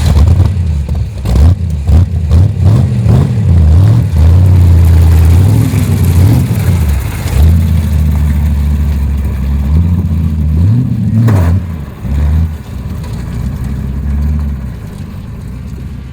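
Holden 253 V8 in a custom ride-on mower, with a Crane cam and a four-barrel carburettor, revving hard. It gives several sharp throttle blips in the first few seconds, then long high-rev pulls with the pitch rising and falling. There is a single sharp crack about eleven seconds in, and it settles to lower, steadier running near the end.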